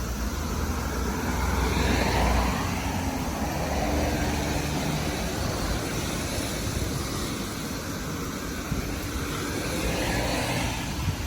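Road traffic passing, its rushing tyre and engine noise swelling and fading as vehicles go by, over a heavy low rumble of strong typhoon wind buffeting the microphone.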